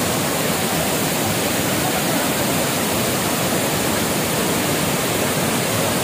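Large multi-tiered waterfall in full monsoon flow, heavy water pouring over rock ledges. It makes a steady, loud rush of falling water.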